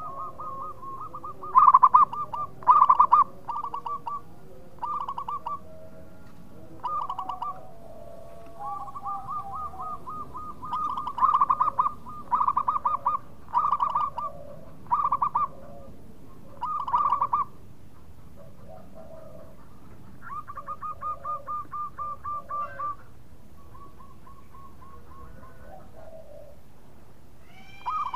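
Zebra dove (perkutut) singing: a string of rapid, trilled cooing phrases, one after another with short pauses, the loudest about two to three seconds in. Fainter coos sound underneath.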